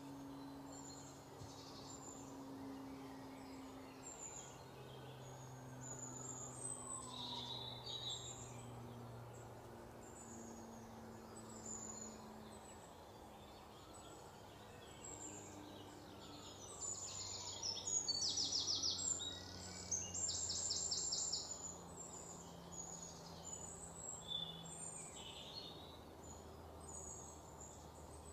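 Birds chirping over a faint low drone of open-air ambience, with two loud, rapid, rattling trills about two-thirds of the way through.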